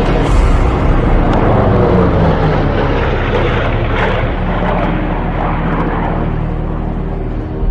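A propeller airplane flying past with its engine running loud and steady.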